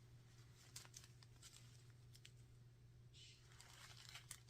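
Faint crinkling and a few light ticks of small plastic bags of diamond painting drills being handled, over a low steady hum.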